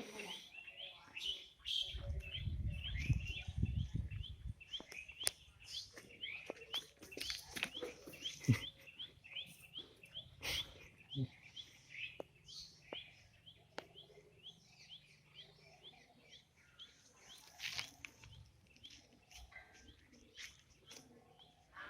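Small birds chirping over and over in short, high notes, thinning out after the first several seconds, with scattered sharp clicks and a brief low rumble about two seconds in.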